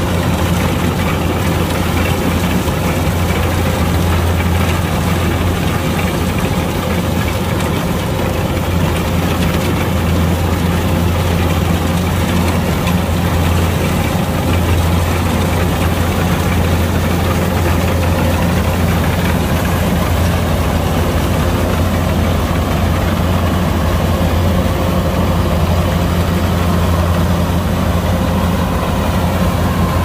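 Kubota DC-105X rice combine harvester's diesel engine running at a steady speed, with a loud, even hum and mechanical noise that does not change.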